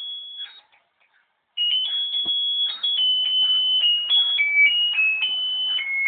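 A battery-powered musical Santa toy plays a simple electronic tune, one high beeping note at a time. The tune breaks off for about a second near the start, then carries on.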